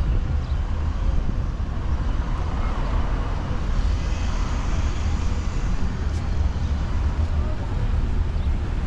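Street traffic: a steady, low rumble of passing vehicles, with voices in the background.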